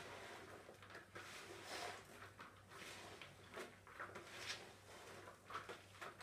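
Hands tossing shredded cabbage and carrot, dressed with oil and vinegar, in a large plastic bowl: faint, irregular wet rustling. A low steady hum runs underneath.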